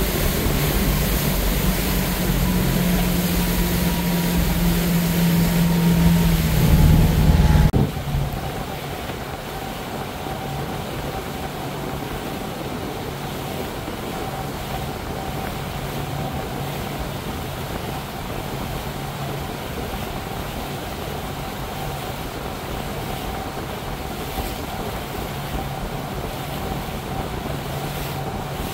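Regal motorboat's engine running hard with wind and rushing water. About eight seconds in the sound drops abruptly to a quieter, steady engine hum over the hiss of the wake.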